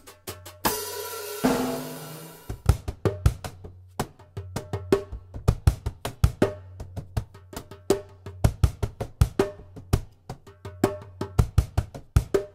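Drum groove on a stripped-down cajon drum kit: a pedal beater striking the cajon as the kick, with snare and hi-hat keeping a steady rhythm. A cymbal crash rings out about a second in, and the left hand adds slaps on a djembe-style hand drum.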